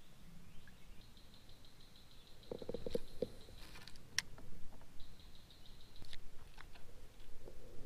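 Spinning reel being cranked: a faint whir with a fine rapid ticking. A sharp click comes about four seconds in as the bail snaps open, with a few small knocks of handling around it.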